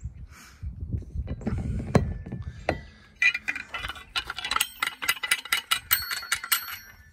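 Rustling handling noise, then from about three seconds in a tire iron and a jack's crank tool clanged together again and again, ringing metal strikes several times a second, struck to make noise.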